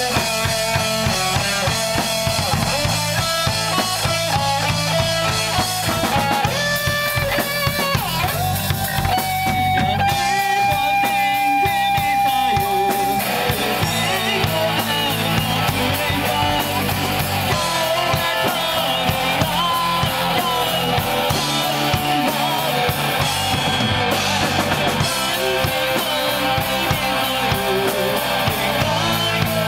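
Rock music played by a band: drum kit and guitars with a steady beat, a held guitar note around the middle.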